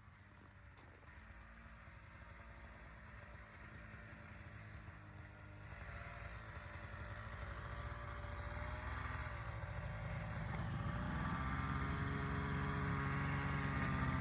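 Two-stroke snowmobile engine approaching, growing steadily louder from faint to clear, its pitch wavering gently as the throttle changes.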